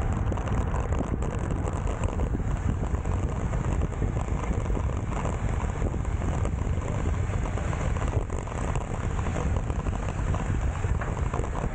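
Wind buffeting the microphone of a bike-mounted action camera while riding in a road race, a steady, fluttering rush heaviest in the low end.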